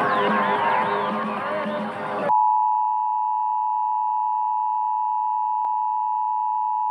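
Music cut off abruptly about two seconds in by the Emergency Alert System attention signal: a steady two-tone beep at 853 and 960 Hz, held unbroken.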